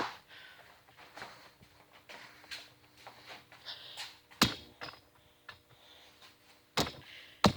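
Handling noise: a few sharp knocks and clicks of objects being moved and set down, the loudest about four and a half seconds in and two more near the end.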